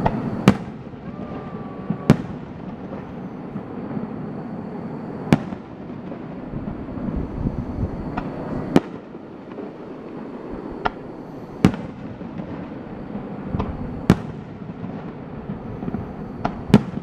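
Festival fireworks going off: sharp bangs of shells bursting, about ten at irregular intervals of one to three seconds, over a steady background noise.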